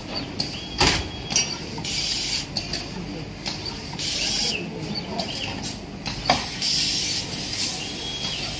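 Workshop machine noise from a tabletop automatic screw-locking machine: sharp clacks as a workpiece and its fixture are set onto the worktable, with intermittent hiss of air. The loudest clack comes a little past halfway.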